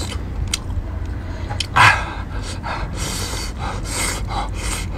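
A person's short, breathy mouth noises, several of them in the second half, while a cooked lobster tail is worked apart by hand; a light click about half a second in, over a steady low rumble.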